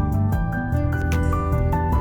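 Background music: melodic held notes changing pitch over a soft steady beat.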